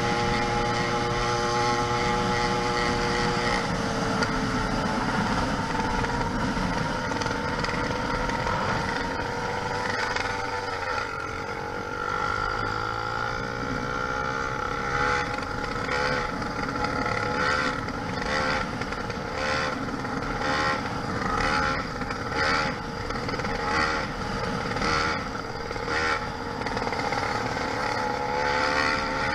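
YD100 two-stroke engine on a motorized bicycle running. Its pitch holds steady, dips a few seconds in, climbs again, dips and rises once more, then surges about once a second in the second half.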